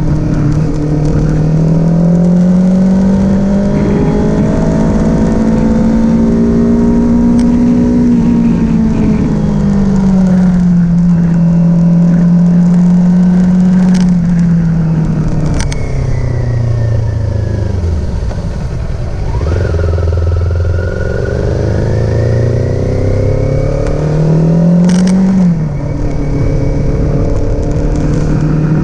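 Kawasaki Z400 motorcycle's parallel-twin engine running at fairly high, steady revs, its pitch easing up and down. Past halfway the revs drop low for a couple of seconds, then climb again near the end, with a few sharp clicks along the way.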